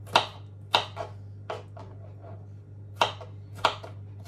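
Kitchen knife slicing garlic cloves on a plastic cutting board: about six sharp taps of the blade on the board at uneven intervals, with a pause in the middle.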